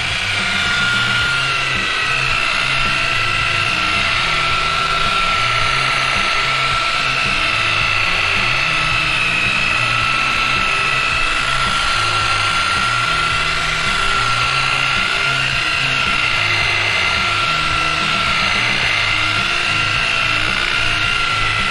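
Electric paint polisher (buffer) running at a turned-up speed with a steady high whine while buffing compound into car paint.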